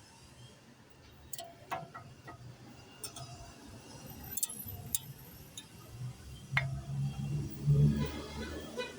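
Small metal clicks and clinks, about half a dozen spread irregularly, as a brake pad and its clips are fitted into the caliper bracket.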